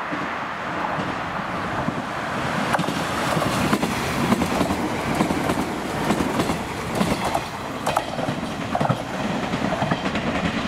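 JR West 381 series four-car tilting limited express train passing at speed: a rumble of wheels on rail that builds over the first few seconds and stays loud, with repeated sharp clacks as the wheels cross rail joints.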